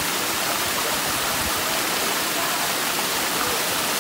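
Small waterfall pouring over rocks into a pool: a steady, unbroken rush of falling water.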